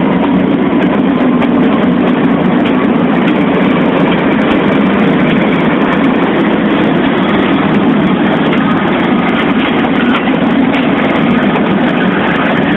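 GE C30-S7 and B23-7 diesel-electric locomotives passing at close range under power, pulling a freight train away from a stand: a loud, steady diesel engine rumble with some rail clatter. The second locomotive comes alongside near the end.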